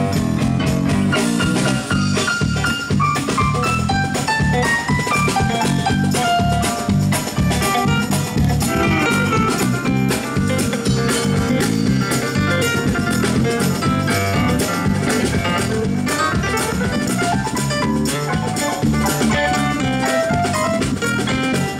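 Live band playing amplified through PA speakers: electric guitars, a Nord Electro 3 keyboard and a drum kit, with a busy lead melody over a steady beat.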